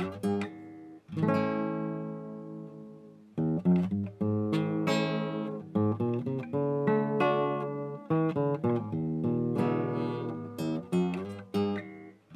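Music: an acoustic guitar playing a run of plucked and strummed chords, each ringing out and fading before the next.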